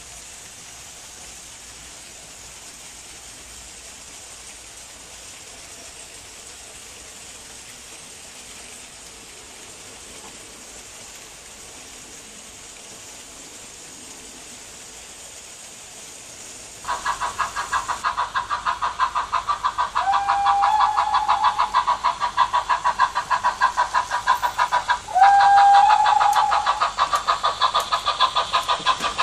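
A faint, steady rushing of an H0 model freight train rolling along the track. About 17 s in, this gives way suddenly to the loud, fast, even chuffing of a model steam locomotive's sound. Two whistle blasts, each rising slightly in pitch, come a few seconds apart over the chuffing.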